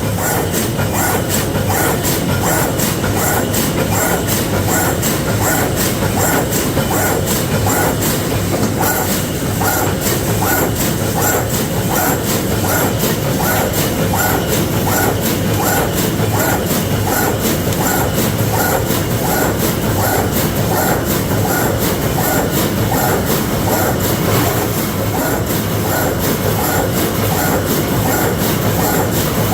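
Continuous wire mesh welding machine running in production, cycling at a steady rhythm of about two strokes a second over a continuous mechanical clatter.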